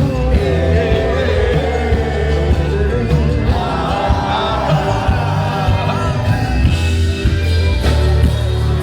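Loud live band music with a singer over a heavy, steady bass line.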